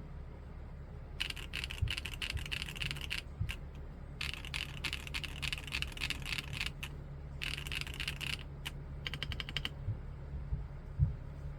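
Typing on a KBDcraft Sachiel LEGO-block mechanical keyboard with Keychron Mint switches, keys clacking in quick runs with short pauses between them.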